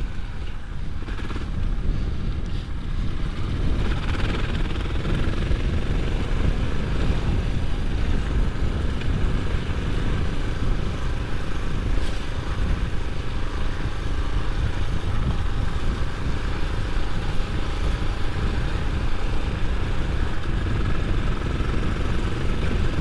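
Suzuki DR650's single-cylinder four-stroke engine running steadily as the motorcycle rides along.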